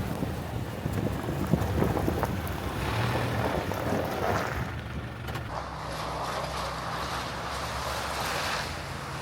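A 2026 Toyota Tacoma SR5 pickup driving on a loose gravel road: steady tyre-on-gravel noise over a low engine drone, with a few scattered clicks of small stones.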